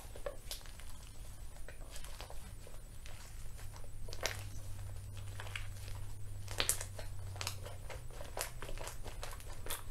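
Slime with shaving cream worked into it being kneaded and stretched by hand, making irregular crackly pops and clicks.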